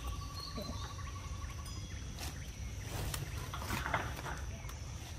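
Outdoor ambience: a steady rapid trill that stops about two seconds in, over a low rumble, then a few short clicks and rustles in the second half.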